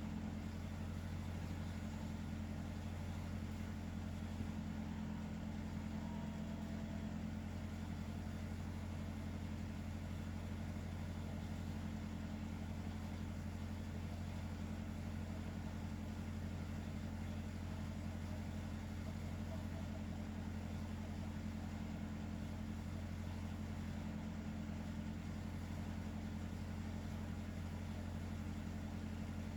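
A steady low mechanical hum with no rise and fall of breathing in it.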